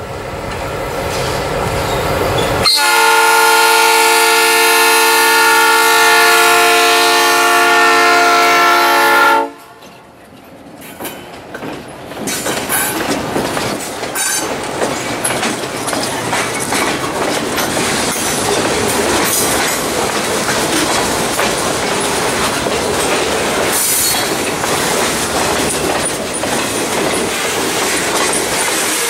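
An EMD GP38-2 diesel locomotive (16-cylinder 645 engine) approaches with a rising rumble, then sounds its air horn in one long, steady, several-note blast of about seven seconds that cuts off suddenly. The locomotive passes and a string of freight boxcars rolls by with steady wheel clatter on the rails.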